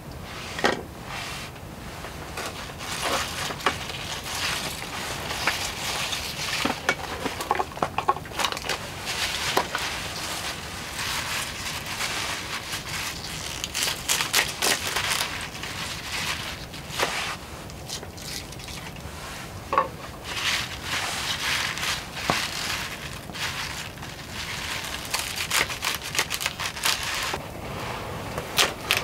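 Hands preparing fresh vegetables on a wooden camp table, green onions and a carrot among them: rustling comes and goes, broken by scattered sharp clicks and taps. Near the end a knife cuts a carrot on a wooden cutting board.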